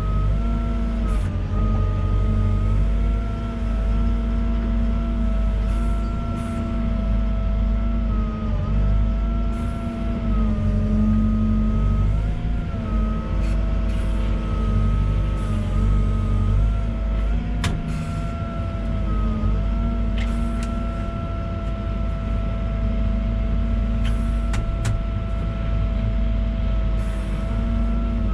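Volvo EWR150E wheeled excavator working: steady diesel engine running with a high whine that dips in pitch now and then, and a few short clicks.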